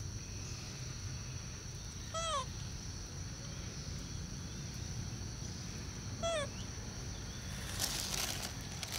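Young macaque giving two short, squeaky calls about four seconds apart, each falling in pitch. A rustle follows near the end.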